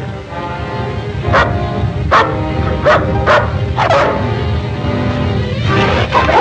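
A dog barking in short, sharp barks, about five in the first four seconds and another near the end, over background film music.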